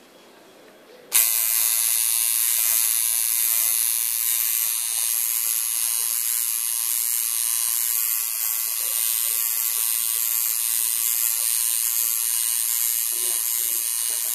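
Electric tattoo machine buzzing steadily as its needle works ink into the skin of a forearm, starting abruptly about a second in and holding a high, even whine.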